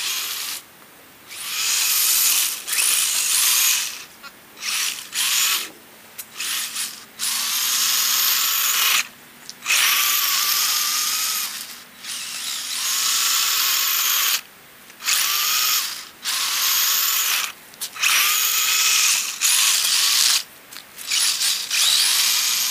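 Radio-controlled plow truck's electric motor and gears whining in stop-and-go bursts of a second or two, the pitch rising and falling with the throttle as it pushes snow.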